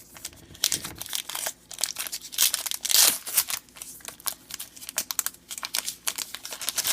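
Crinkly wrapper of a trading card pack being torn open and handled: a dense run of crackles, loudest about three seconds in.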